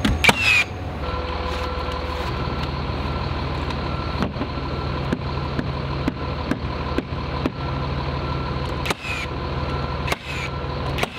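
Cordless nailer firing nails into OSB wall sheathing: sharp shots at irregular intervals, the loudest right at the start, over a steady engine-like drone.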